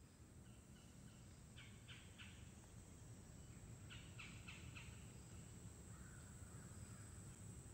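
Faint crow cawing: two quick runs of caws a couple of seconds apart, over a low background rumble.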